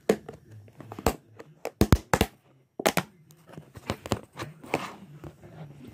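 Clear plastic storage-tub lid being handled and pried at by fingers: a series of sharp plastic clicks and cracks, several close together about two seconds in, with soft rustling in between.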